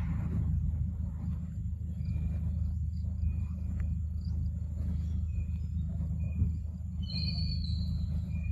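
Outdoor ambience: a steady low rumble with short high chirps recurring about once a second, and a longer high call about seven seconds in.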